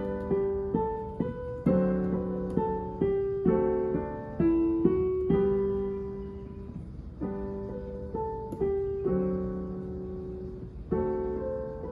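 Digital piano playing a simple melody in G major over held left-hand chords, at an unhurried tempo with a few short pauses between phrases.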